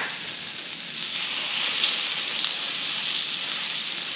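Butter sizzling and foaming as it melts in hot beef tallow in a cast-iron skillet, a steady frying hiss that grows louder about a second in.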